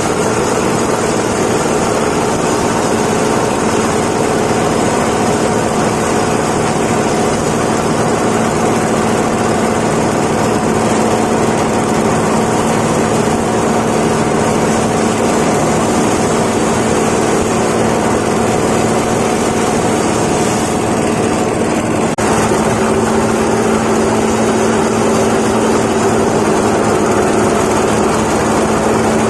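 Rice husk and straw grinding machine running steadily with a constant hum. Its note shifts slightly about two-thirds of the way through.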